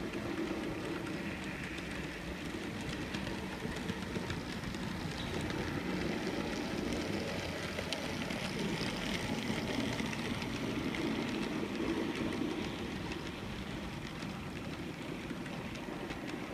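Model Y6b 2-8-8-2 steam locomotive and its train of hopper cars running past on model railroad track. A steady whir and rolling rumble with faint clicks from the wheels, loudest around the middle as the engine passes close.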